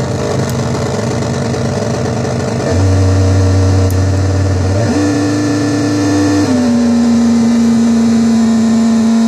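DIRTY DRONE [anarchy edition] stochastic drone synth, its three interacting triangle-wave oscillators putting out a steady, many-toned drone. The pitch jumps in steps: a low tone gives way to a higher one about five seconds in, which drops slightly about a second and a half later.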